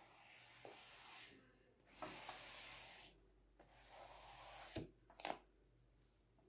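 Faint rubbing of a kitchen sponge loaded with white paint dragged across a canvas, in three short strokes, followed by two light clicks about five seconds in.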